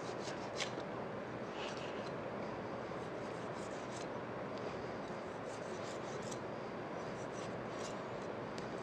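Kitchen knife blade scraping the hard scales off a skipjack tuna's skin near the head: a run of short, light scrapes over a steady background hiss.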